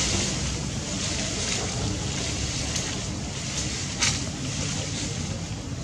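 Wind rumbling on the microphone over a steady high hiss, with a single sharp click about four seconds in.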